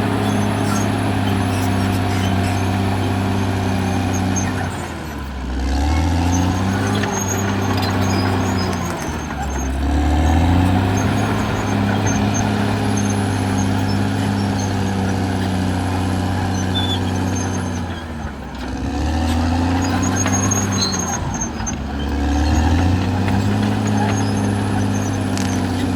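Caterpillar D6R XL bulldozer's diesel engine running steadily. Its pitch drops and climbs back up about four times as the machine works.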